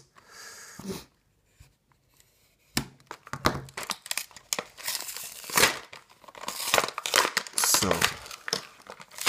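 Plastic blister pack being torn open from its cardboard backing: irregular crinkling of the thin plastic and tearing of the card. It starts about three seconds in after a brief quiet and goes on to the end.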